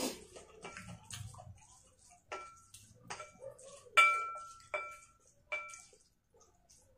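Fork and chopsticks clinking against a bowl while scooping and mixing food, about seven short ringing clinks under a second apart, the loudest about four seconds in.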